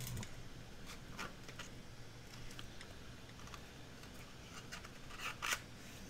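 Cardstock being handled and slid into place on a craft mat: faint paper rustles and scrapes with a few brief clicks, the loudest just before the end.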